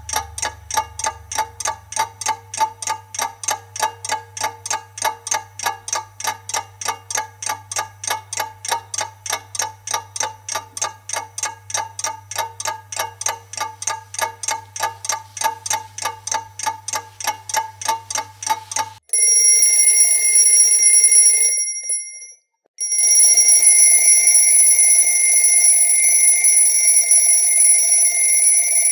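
A clock ticking fast and evenly, about four ticks a second, over a low hum. About nineteen seconds in it gives way to an alarm clock bell ringing continuously and loudly, which stops for about a second and then rings on.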